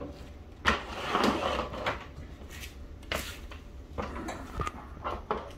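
Wooden crib furniture being handled and shifted: a sharp knock under a second in, then lighter clicks and knocks of the panels and parts.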